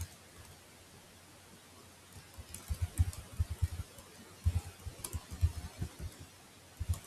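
Computer keyboard typing: quick, irregular keystrokes starting about two and a half seconds in.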